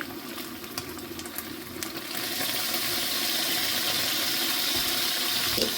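Meat frying in a pan with faint crackles, then about two seconds in a kitchen tap is turned on and runs steadily.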